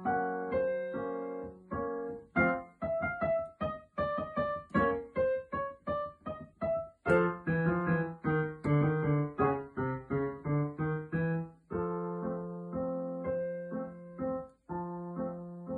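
Solo digital piano: chords and a melody played over held low notes, growing louder about seven seconds in.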